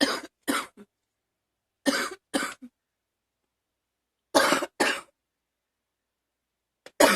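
A girl coughing in short, sharp double coughs, three pairs about two seconds apart, with a fresh bout starting right at the end.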